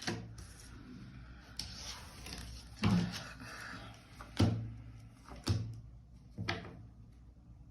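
Several light knocks and taps about a second apart, with faint rustling between them, as tarot cards are handled and laid on a table.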